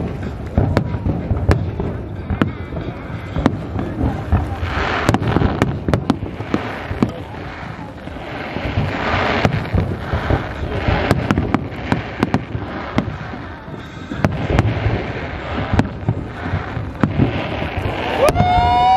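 Fireworks display with aerial shells bursting in quick succession: dozens of sharp bangs and booms over a continuous crackling hiss. Near the end a held, pitched tone rises in over the bangs for about a second.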